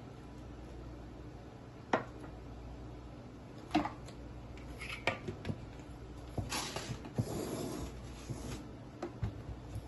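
Kitchen handling sounds: sharp knocks and clicks as an emptied tin can is set down on the counter and a plastic blender lid is picked up and fitted onto a glass blender jar, with a couple of seconds of scraping noise in the middle.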